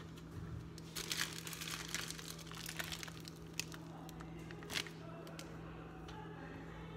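Clear plastic zip-top bag crinkling as pink icing is squeezed out of it by hand, thickest between about one and three seconds in, with a couple of sharp crackles after.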